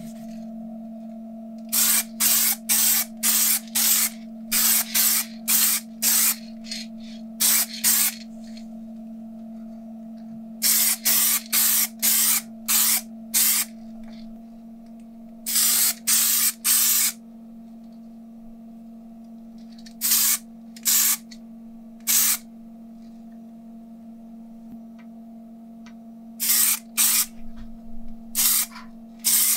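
Aerosol spray-paint can spraying black paint onto small metal parts in many short bursts, each under half a second, in quick clusters with pauses between. A steady hum runs underneath.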